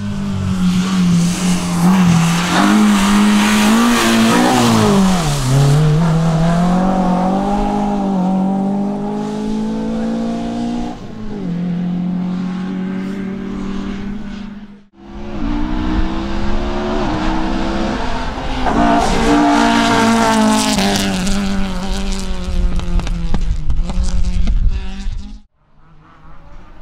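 Racing car engine at high revs, its pitch dropping sharply and climbing again as it brakes and accelerates, then stepping through gear changes. The sound cuts off abruptly twice, about halfway through and near the end, where one car's run gives way to another's.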